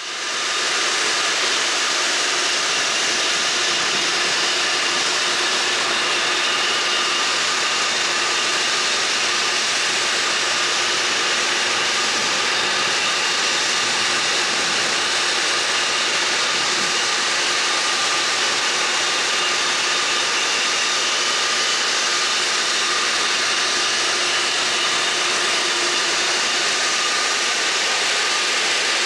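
Steady machinery noise from a freighter loading at an iron ore dock: an even, unbroken hiss with a few faint steady hums in it.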